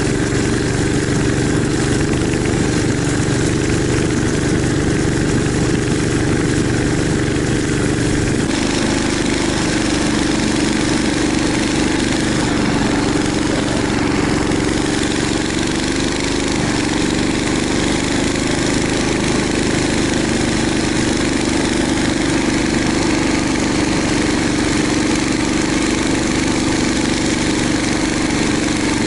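Small engine of a motorized snow tow (motobuksirovshchik) running steadily under way, with a slight change in its note about eight seconds in.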